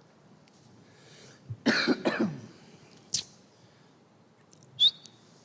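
A person coughing and clearing their throat about a second and a half in, followed by a sharp click and, near the end, a brief sharp high-pitched sound.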